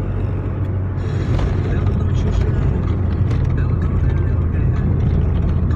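Steady low engine and road drone of a moving car, as heard from inside.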